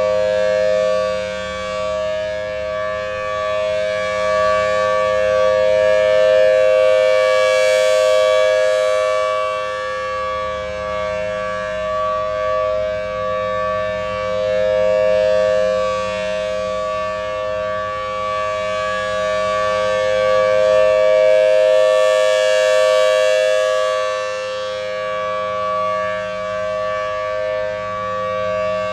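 Federal Signal Thunderbolt 1000T outdoor warning siren sounding its full alert: a loud, steady two-tone wail. It slowly swells and fades as the rotating head sweeps toward and away, loudest about seven seconds in and again about twenty-one seconds in.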